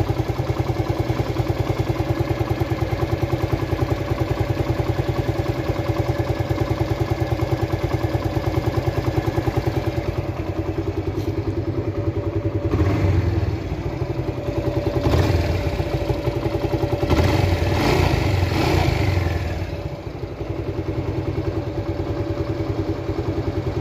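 Suzuki Gixxer 150's air-cooled single-cylinder engine idling evenly with a newly replaced cam chain, with a few short revs about halfway through.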